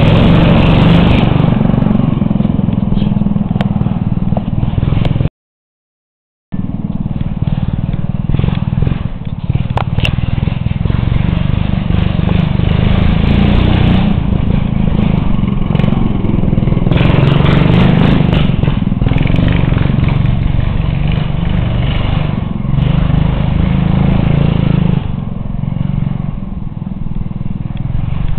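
Racing lawn tractor's engine running hard and revving up and down as the machine spins donuts. The sound cuts out completely for about a second some five seconds in, and the engine eases off near the end.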